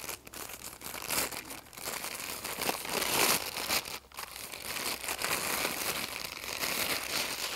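Packaging wrap crinkling and crackling in irregular bursts as it is pulled and torn by hand off a boxed clutch slave cylinder, with a short lull about four seconds in.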